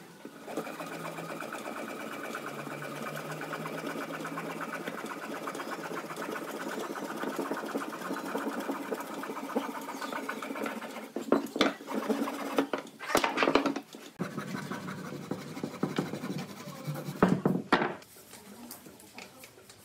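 A saw cutting through a green tree branch with rapid, even strokes for about ten seconds, then a series of louder knocks of wood against the wooden table.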